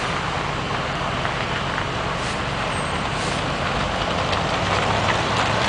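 Motor vehicles idling and driving past on a street: a steady low engine hum.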